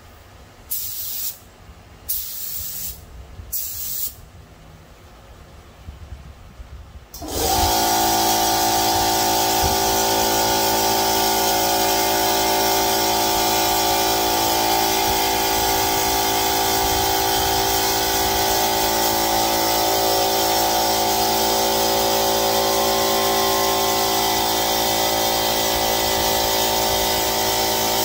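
A gravity-feed paint spray gun hissing in three short bursts of air and paint. About seven seconds in, an air compressor kicks on abruptly and runs steadily with a loud, many-toned motor hum over the hiss.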